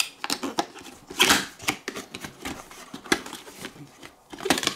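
Packaging being handled as items are taken out of a headphones box: irregular clicks and taps with short rustles, the longest rustle about a second in.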